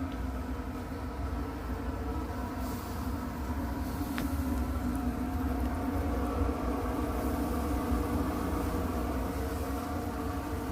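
Steady mechanical hum with several steady tones over a low rumble, swelling a little toward the middle.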